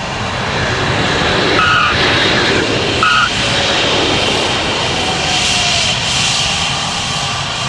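Concorde's Olympus 593 jet engines running loud and steady as the aircraft lands and rolls out on the runway. Two short high tones sound about a second and a half apart.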